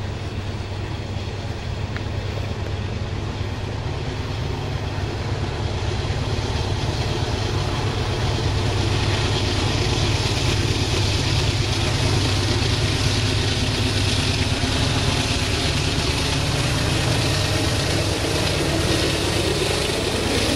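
Covered hopper cars of a grain train rolling past with a steady rumble over the rails. Underneath runs the low hum of the approaching distributed-power diesel locomotive, growing louder, with a rail hiss building from about halfway through.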